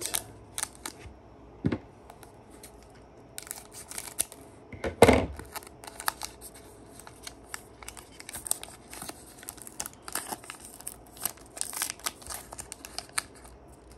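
Foil booster pack wrapper crinkling and crackling as it is handled and opened, in a string of small crackles with one louder crackle about five seconds in.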